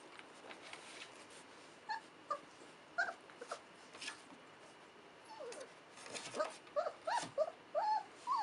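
Young English golden retriever puppies squeaking in play: short, high yips and whimpers that bend up and down in pitch, a few at first and then coming thick and fast over the last three seconds. This is the squeaky early play-growling of puppies just starting to play-fight. Faint light clicks can be heard in the first seconds.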